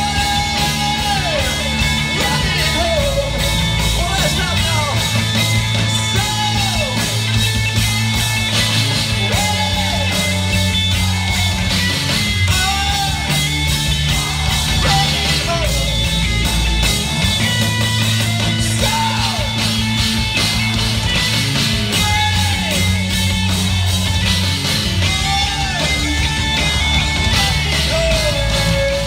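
Live rock band playing loudly: electric guitars, bass and drums, with a melody that slides up and down in pitch every couple of seconds over a steady beat.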